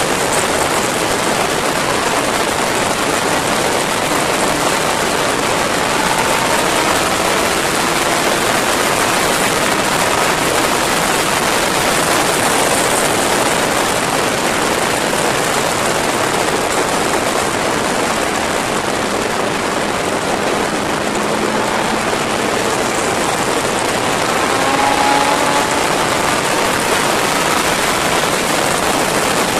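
Steady, loud rush of wind over a motorcycle-mounted camera at high speed, largely burying the Yamaha sport bike's engine, whose note can be heard faintly rising in pitch a few times as it pulls through the gears.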